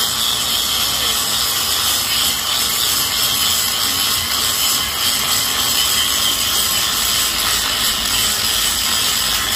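Electric angle grinder held against a steel window grill, grinding the metal with a steady, unbroken noise that is strongest in the high pitches.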